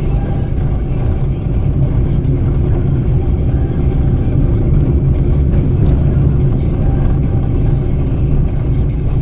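A car driving: steady engine and road-noise rumble.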